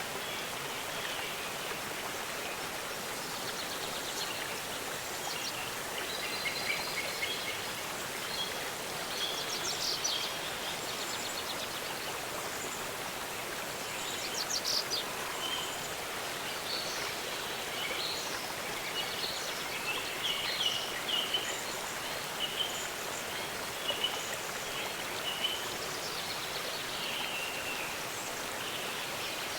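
Steady rushing of a waterfall, with songbirds chirping and trilling over it at intervals.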